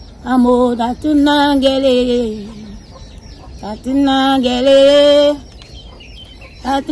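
Roosters crowing, three loud crows a few seconds apart, each ending in a long held note that falls in pitch.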